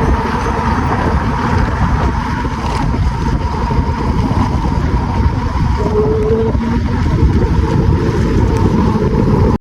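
Wind rushing over the microphone during a ride, over a vehicle's running engine, with a steady tone. It all cuts off at the very end.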